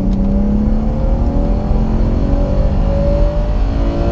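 Single-VANOS BMW straight-six under full throttle in second gear, heard from inside the cabin, its note climbing steadily as the revs rise. The VANOS is held off for this logged pull.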